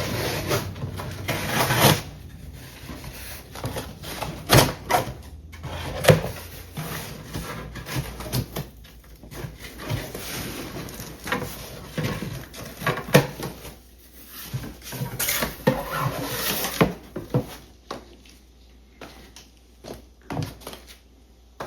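Items being handled and unpacked from a cardboard box: irregular rustling, scraping and knocks, quieter near the end.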